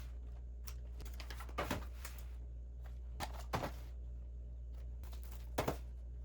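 Small household items being handled: a few light clicks and taps, spaced irregularly, over a steady low hum.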